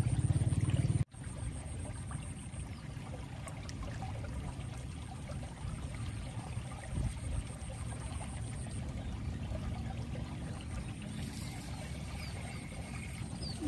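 Steady running and trickling water in a flooded irrigation ditch. A louder low rumble in the first second breaks off abruptly.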